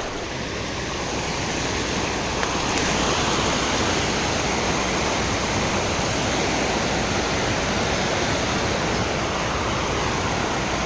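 Creek waterfall rushing: a steady, dense wash of falling water that grows a little louder over the first few seconds and then holds even.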